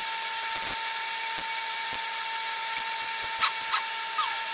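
Steady whine and hiss of a shop air compressor running, with a few light metal clicks and a short squeak near the end.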